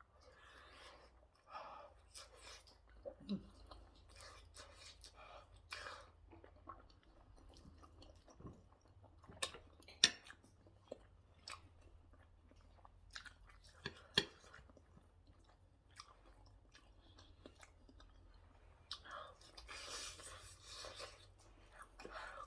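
A person chewing and biting food close to the microphone: irregular wet mouth sounds and smacks, with a couple of sharper clicks in the middle and a denser stretch of chewing near the end.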